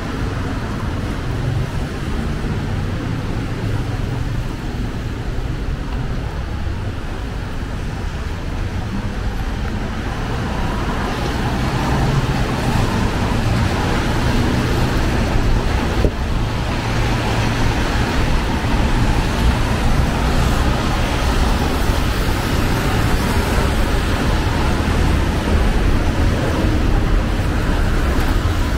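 City street traffic on a wet road: a steady rumble of cars driving past, growing louder about halfway through, with a single sharp click midway.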